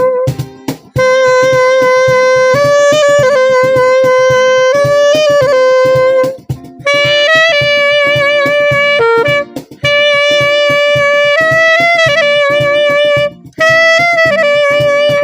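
Saxophone playing a slow melody in long held notes, phrase by phrase with short breaths between, over a steady rhythmic accompaniment.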